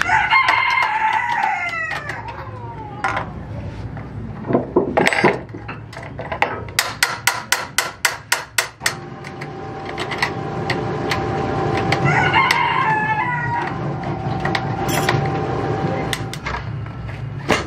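A rooster crows twice, once at the start and again about twelve seconds in. Between the two crows comes a quick run of about ten sharp knocks, about four a second.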